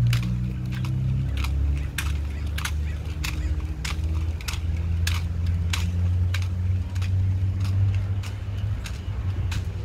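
Sharp slaps and clicks of M1 Garand drill rifles being spun, caught and struck in silent drill, about two a second at uneven intervals, over a steady low hum.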